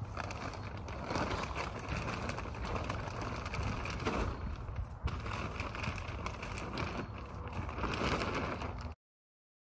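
Sheet of clear plastic rustling and crinkling in swells as it is pulled and spread over a frame, over a steady low rumble; all sound cuts off suddenly near the end.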